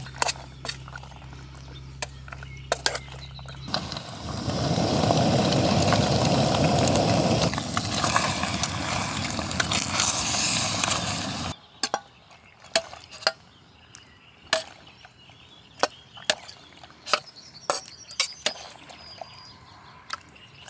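Metal spoon stirring pasta and tomato sauce in a steel camping pot, clinking and scraping against the metal, then scraping pasta onto a metal plate. For several seconds in the middle a loud steady hiss covers it and cuts off suddenly.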